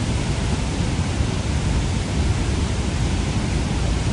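Steady, unbroken roar of the flooded Beas river in spate, rushing water with a heavy low rumble.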